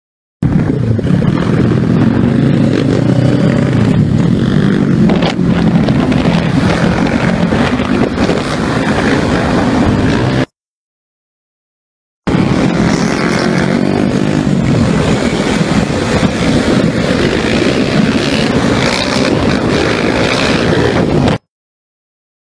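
Many motorcycle and scooter engines running together in a dense pack of moving bikes. The sound cuts out to dead silence twice, for about two seconds each time.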